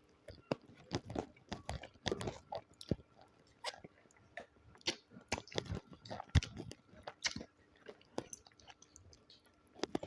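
Close-miked chewing of spicy chicken feet: irregular wet smacks and mouth clicks with some crunching, one sharper click about six seconds in.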